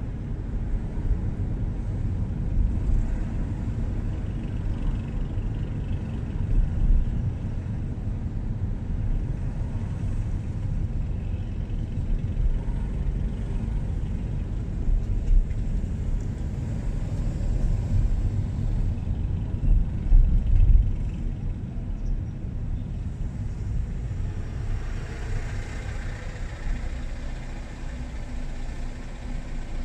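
A car driving on a city street: a steady low rumble of engine and tyres on the road, with a few louder bumps, the strongest about 20 seconds in. A brief rise of higher hiss about 25 seconds in.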